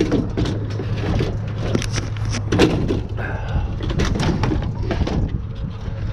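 Scattered knocks and clanks of scrap metal being handled and shoved into place, over a steady low hum.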